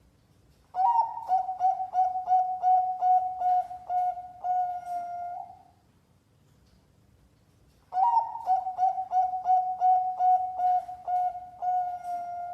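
Zebra dove (perkutut) singing competition-style song: two phrases, each a quick run of about a dozen short cooing notes ending in a longer drawn-out coo.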